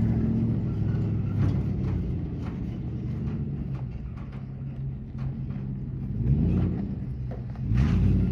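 Pickup truck engine running at low crawling speed on a rocky trail, revving up and back down twice in the last couple of seconds as it climbs over a ledge. Short clicks and crunches of stones come through it.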